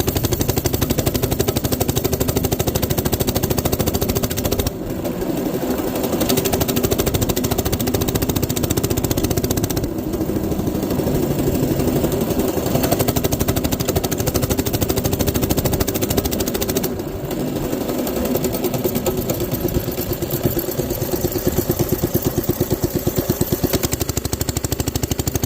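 Coleman B200R mini bike's single-cylinder engine running hard in a fast, rapid firing beat while being ridden, easing off briefly about five, ten and seventeen seconds in. It keeps pulling under throttle without cutting out, now that a different carburetor has been fitted.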